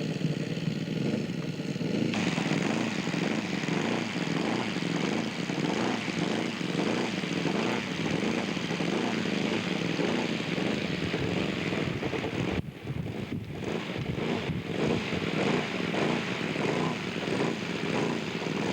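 Radio-controlled scale model airplane's glow engine running steadily with its propeller, the note wavering a little; the sound briefly drops away about two-thirds of the way through.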